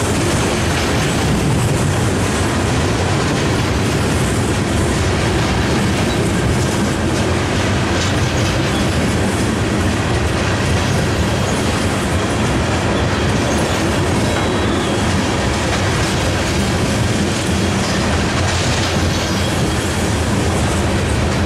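Freight train of coal cars rolling past: a steady, loud rolling noise of steel wheels on the rails.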